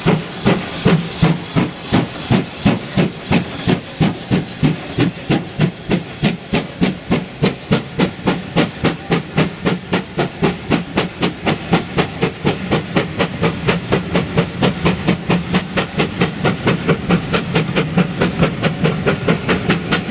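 GWR 2-8-0 steam locomotive No. 3863 working hard as it pulls a train of coaches away, its exhaust chuffs quickening steadily as it gathers speed, with steam hissing from the open cylinder drain cocks.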